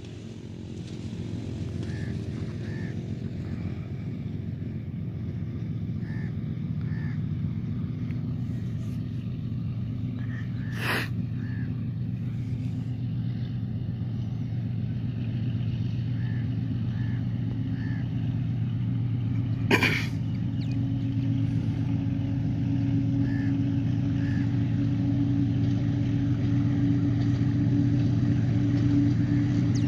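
Diesel locomotive of a passenger train approaching, its low engine drone growing steadily louder. Two sharp clicks, about a third and two-thirds of the way through.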